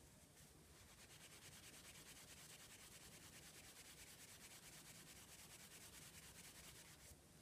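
Faint, quick, even rubbing of a cotton cloth buffed against a baked polymer clay piece to raise a sheen, stopping near the end.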